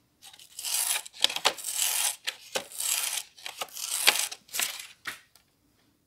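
A small switch contact being rubbed back and forth on fine sandpaper by hand, a series of quick scratchy strokes that stop about five seconds in. The sanding cleans pitting and burn off contacts that have been arcing.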